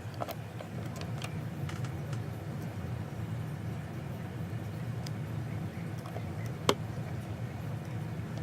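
Small clicks and taps of tools and a small metal cover plate being handled and fitted over an iPhone's screen connectors, with one sharper click about six and a half seconds in, over a steady low hum.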